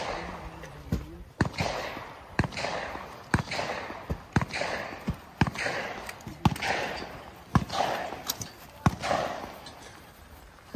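Gunshots fired at a steady pace, roughly one a second, about ten in all, each trailed by a short echo. The shots thin out near the end.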